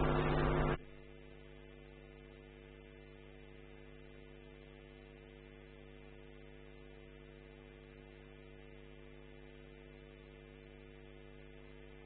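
Faint, steady electrical mains hum and buzz, a stack of steady tones with no program sound over it. Less than a second in, a louder steady noisy background cuts off suddenly, leaving only the hum.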